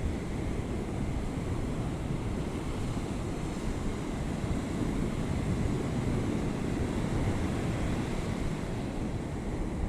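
Ocean surf washing on the beach, with wind rumbling on the microphone.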